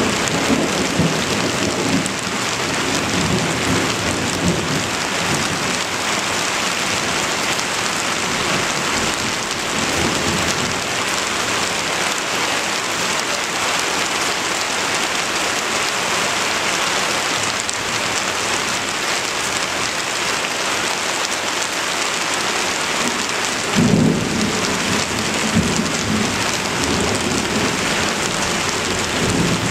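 Heavy, steady thunderstorm rain, with low thunder rumbles near the start and again about a third of the way in. A sharper, louder thunder rumble comes about four-fifths of the way through, with smaller ones after it.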